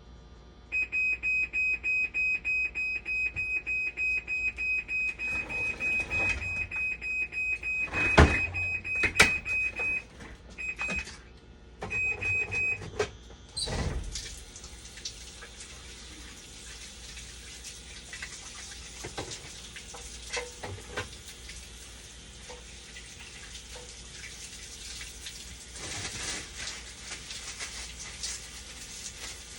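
Dialysis machine powering up after its burnt power supply was repaired: it sounds a high alarm beep, pulsing rapidly for about ten seconds, then a few shorter beeps. About fourteen seconds in there is a thump, followed by a steady hiss.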